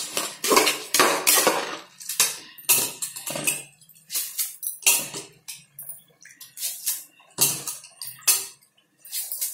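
A ladle scraping and knocking against a metal pot as raw rice and moong dal are stirred together, in irregular strokes with a short pause near the end.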